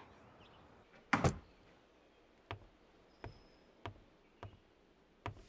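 A loud clunk about a second in, like a door, then five evenly paced footsteps on a hard floor, each a short knock with a low thud.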